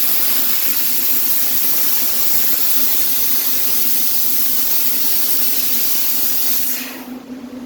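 CNC fiber laser cutting machine with a 750 W IPG source, cutting: a loud, steady, high hiss over a steady hum. The hiss cuts off suddenly near the end, leaving only the hum.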